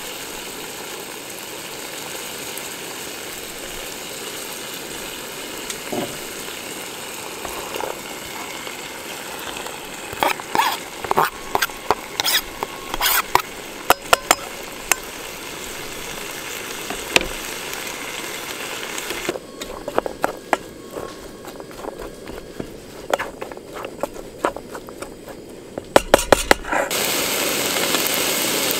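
Food frying in a pan on a camping stove: a steady sizzling hiss, with the clicks and scrapes of a utensil stirring from about ten seconds in. The hiss drops away about two-thirds of the way through and comes back louder near the end.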